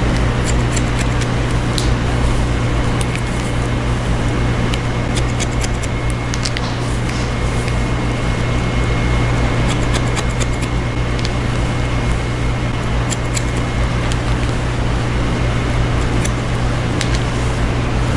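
Hair-cutting scissors snipping hair in short runs of quick, sharp clicks, over a loud steady low hum.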